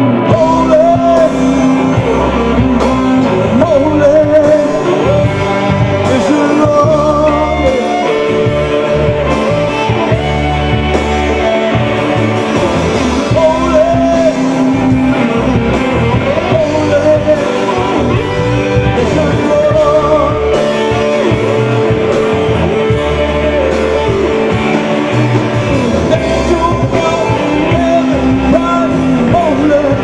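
Live electric gospel-rock band playing: electric guitars, bass guitar and drums, with a man singing into the microphone.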